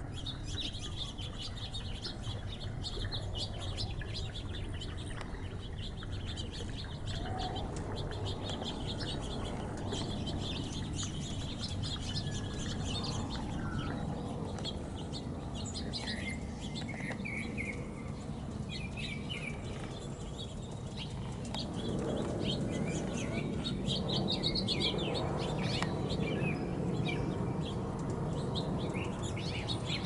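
Small birds chirping and twittering repeatedly in a garden, high and brief, over a steady low background noise that grows louder about two-thirds of the way through.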